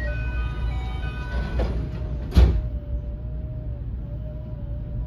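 Electric train motor car pulling away slowly: the Toshiba IGBT VVVF inverter of a JR West 223 series 2000 gives steady tones that jump in pitch, then settles into one steady hum over a low rumble from the running gear. One sharp loud clunk about two and a half seconds in.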